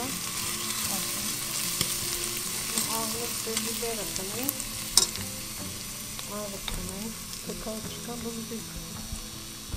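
Diced onion sautéing in olive oil in a stainless steel pot: a steady sizzle, with a metal spoon stirring and clicking against the pot now and then, one sharper click about halfway through.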